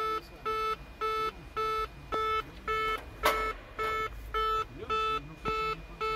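Cessna landing-gear warning horn beeping on and off at an even pace, about three beeps every two seconds. It sounds because the gear is not down and locked. A short rustle of handling comes about three seconds in.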